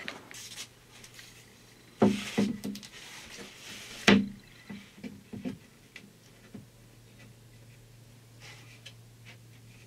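Wooden boards knocking and clattering as they are handled and set in place, with two louder bumps about two and four seconds in and a few lighter knocks after, over a low steady hum.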